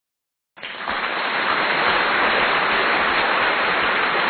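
A loud, steady rushing noise that starts abruptly out of total silence about half a second in.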